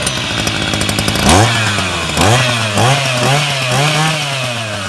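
Kawasaki TJ53E two-stroke brush-cutter engine (46 mm bore) running loud, blipped by hand on the throttle: about a second in it revs up sharply, then comes about five quick rev-and-drop blips, each falling back towards idle.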